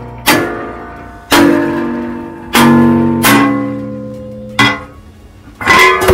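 Hammer blows on a steel plate, about six strikes a second or so apart, each leaving the steel ringing at a different pitch as the cut strip bends down. Near the end a quick cluster of clangs as the strip breaks off and drops.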